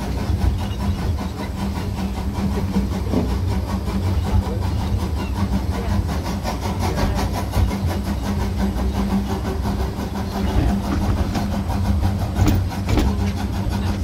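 Miniature steam locomotive and its carriages running along the line: a steady rumble of wheels on rails with a constant low hum and a rapid, even beat over it.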